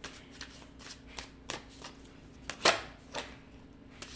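A tarot deck being shuffled by hand: cards slapping and sliding against each other in an irregular run of soft clicks, with one louder snap a little over halfway through.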